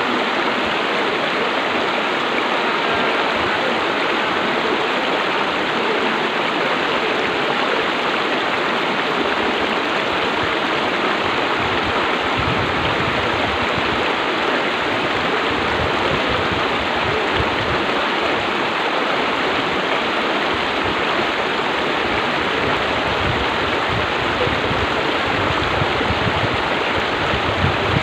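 Shallow rocky river rushing over rapids: a steady, even rush of water, with a low rumble joining about halfway.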